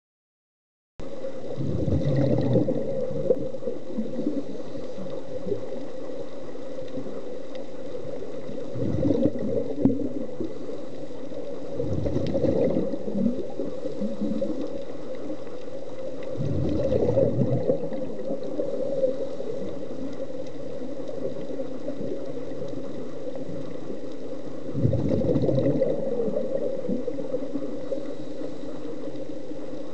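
Scuba exhaust bubbles from a diver's regulator gurgling in about five bursts a few seconds apart, one for each exhalation, over a steady underwater hum.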